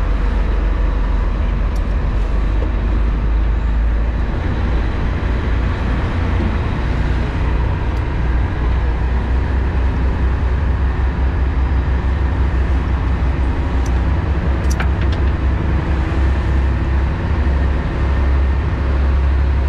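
Fishing boat's engine running steadily under way: a constant low rumble with a haze of wind and water noise.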